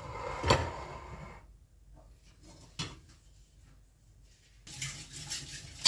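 Kitchen handling sounds from a stone mortar being slid aside on a marble countertop: a short scrape with a sharp knock about half a second in, a lighter knock near three seconds, then a soft rustle near the end.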